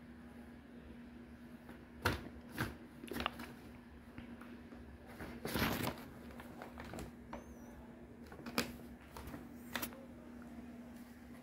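Paper bag crinkling and rustling in short bursts as a kitten moves and bats a paw inside it, with one longer rustle around the middle. A faint steady hum lies underneath.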